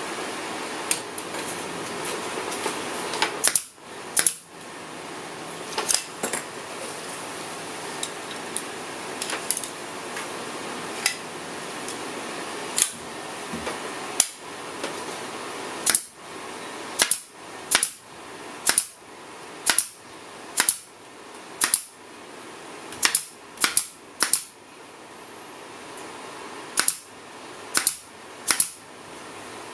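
Pneumatic staple gun firing staples through carpet into a wooden boat-trailer bunk board: about twenty sharp shots at uneven intervals, coming faster in the second half, over a steady hiss.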